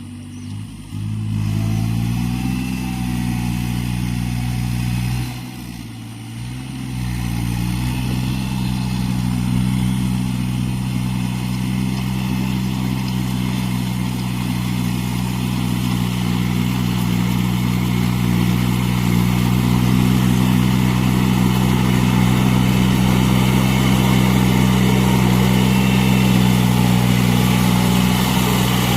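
Iseki NT540 tractor's diesel engine running, rising about a second in, dipping briefly around five to six seconds in, then running steadily and slowly growing louder.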